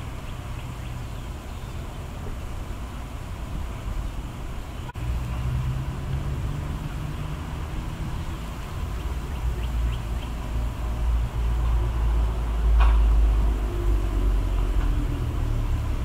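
Low steady background rumble that gets louder about five seconds in, with one brief sharp chirp-like sound near the end.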